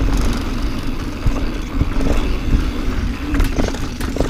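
Wind buffeting the microphone and mountain bike tyres rolling fast over dirt and rock, with scattered knocks and rattles from the bike on rough ground.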